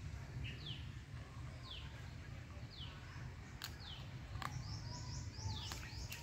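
A bird calling in the background: a short chirp dropping in pitch, repeated roughly once a second, with a run of quicker, higher notes near the end. Under it is a low steady rumble, and a few sharp clicks come in the second half.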